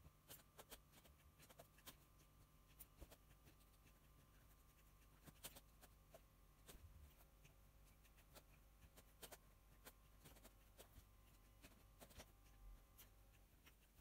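Near silence: room tone with a faint steady low hum and scattered faint ticks and clicks.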